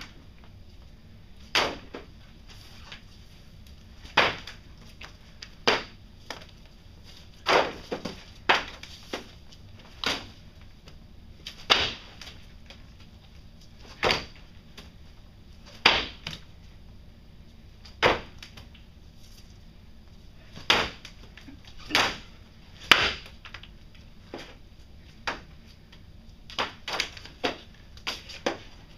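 Sharp knocks at an irregular pace, about one every one to two seconds: a pet rabbit tossing a toy that knocks against the floor.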